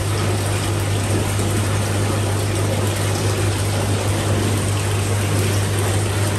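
Water pump running with a steady low hum, and water rushing and splashing, as from fish-tank circulation.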